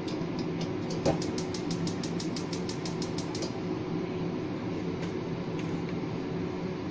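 Steady mechanical hum of a kitchen appliance, with a single knock about a second in and then a fast run of clicks, about ten a second, lasting around two seconds.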